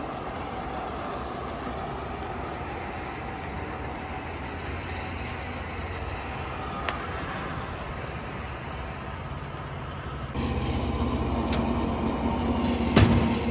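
Steady low rumbling outdoor noise that grows louder about ten seconds in, with one sharp knock near the end.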